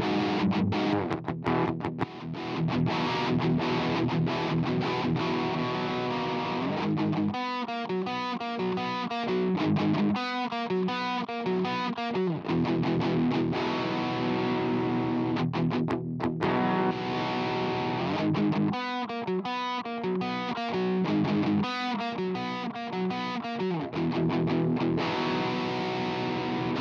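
Distorted electric guitar riff played back through the Blue Cat Audio Destructor distortion plugin, with its shaper switched from a pentode tube emulation to soft saturation and then to bluesy drive as it plays. Held chords alternate with choppy, stop-start passages.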